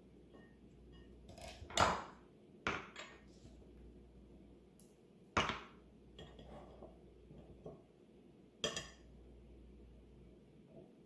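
Kitchen utensils knocking and clinking against a ceramic bowl, a jar and a wooden cutting board while paste is scooped out and mixed in: four sharp knocks, the loudest about two seconds in, with lighter taps and scrapes between.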